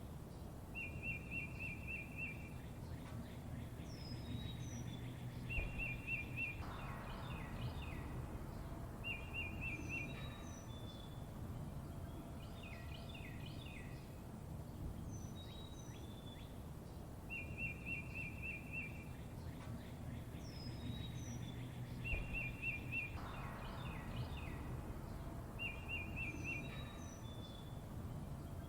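Songbirds chirping: short rapid trills, high downward-sliding whistles and quick chirps, over a steady low background rumble. The same sequence of calls comes round again about every 16 seconds, as in a looped recording.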